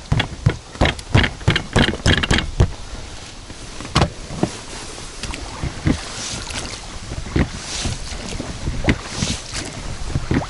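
Rowing an inflatable PVC boat. In the first few seconds there is a quick clatter of knocks as the oars are handled against the boat, then single knocks and short water splashes of oar strokes every second or so. Wind rumbles on the microphone throughout.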